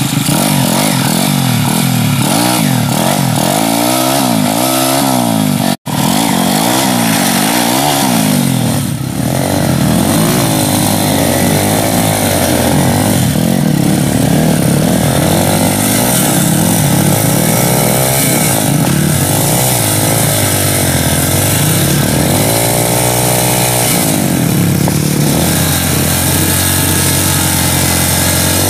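Trail motorcycle engines revving up and down again and again, buzzy and high-pitched, as a bike stuck in loose dirt and mud is forced forward with the rear wheel spinning. The sound cuts out for an instant about six seconds in.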